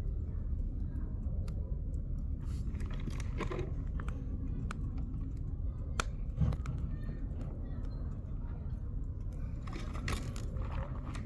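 Wood campfire burning: scattered crackles and sharp pops from the logs over a low steady rumble, with one sharper pop about six seconds in.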